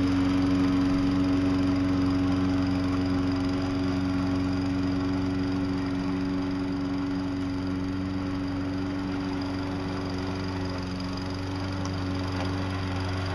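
Self-propelled walk-behind lawn mower's small gasoline engine running steadily under load as it pushes snow with a home-made plow blade, growing slowly quieter as it moves away.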